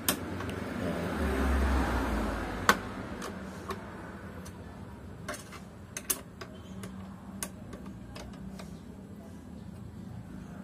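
Irregular small metallic clicks and taps from a 5 mm Allen key working the front-panel bolts of a scooter, with a soft rustle of handling in the first few seconds.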